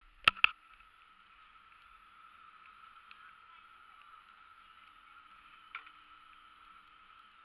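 Chairlift ride heard from the chair: a faint steady whine over hiss. Two sharp clicks come right at the start, and one more click comes about six seconds in.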